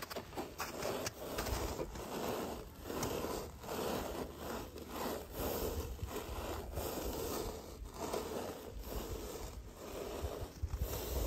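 A metal cooking pot scraping and grinding against crusty snow as it is set down and shifted, a run of crunching scrapes.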